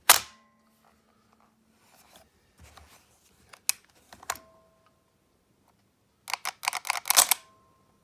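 Maruzen MP5K gas-blowback airsoft gun being worked by hand: a sharp snap of its metal cocking handle and bolt with a short metallic ring, then two more single clicks. Near the end comes a quick run of clicks and rattles.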